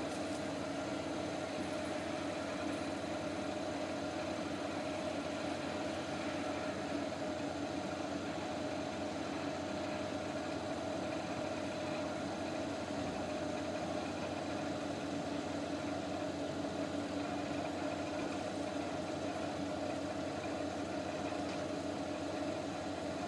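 Steady hum of a car idling, heard from inside its cabin, with a few constant tones running through it.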